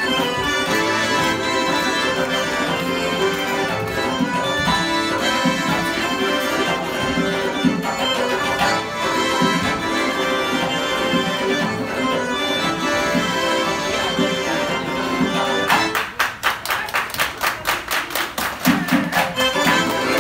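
Georgian folk dance music played live on an electronic keyboard with an accordion-like sound and a steady beat. About sixteen seconds in the music thins out and a fast, even run of sharp percussive beats, about five a second, takes over.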